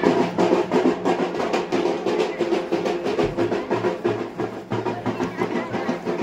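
Music driven by fast, dense drumming, many strokes a second, over a steady lower tone.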